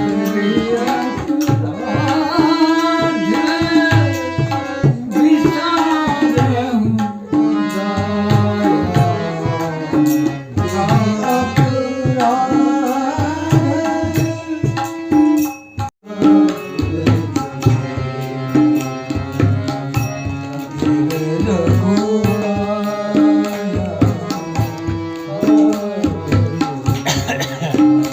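Harmonium playing a devotional melody over a steady tabla rhythm, with a brief break about halfway through.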